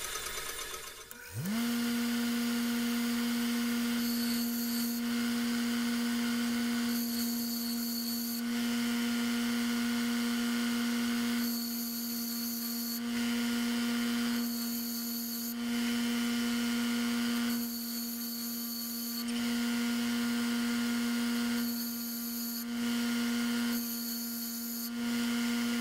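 A Jet bench grinder is switched on about a second in, its motor hum rising quickly to a steady pitch. A high-speed steel fly cutter bit is pressed against the grinding wheel in about seven short passes, each a hiss of a second or so.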